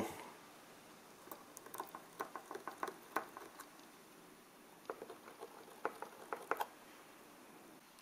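Pencil point scratching on an aluminium heatsink through the holes of a plastic panel, marking screw-hole positions, in two short bursts of quick faint strokes, one starting about a second in and one about five seconds in.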